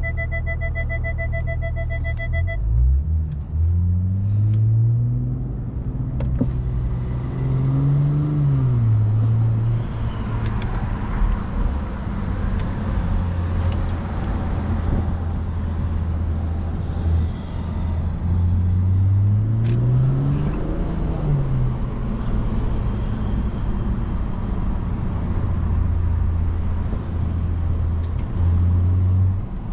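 Cabin sound of a Brabus-tuned Mercedes-Benz CLS driving: a steady low engine drone under road and tyre noise, with the engine pitch climbing under acceleration and dropping back at an upshift, twice. A pulsing electronic beep sounds for the first couple of seconds.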